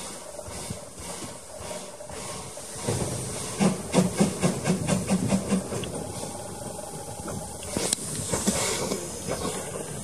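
Steam tank locomotive W8 'Freshwater', an A1X Terrier 0-6-0T, hissing steam from its open cylinder drain cocks as it moves slowly, with a run of quick exhaust chuffs from about three to six seconds in.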